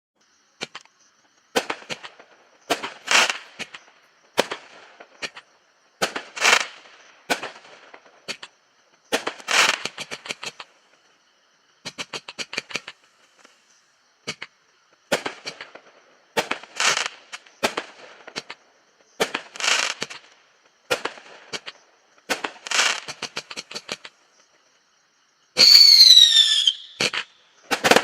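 Consumer fireworks going off: clusters of sharp pops and crackling every second or so, with a lighter stretch in the middle. Near the end a loud whistle falls in pitch for about a second and a half, followed by a bang.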